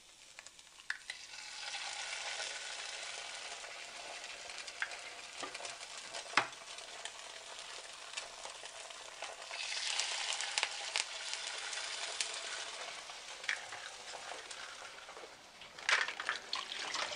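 Raw eggs sizzling as they are poured into a hot, lightly oiled frying pan inside bell pepper rings. The sizzle swells about a second and a half in and again near the middle as each egg hits the pan, with a few sharp clicks in between.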